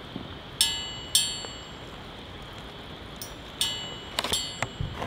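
Sharp metallic clinks of a camp cookpot, each ringing briefly, about seven at irregular intervals, over a faint steady hiss.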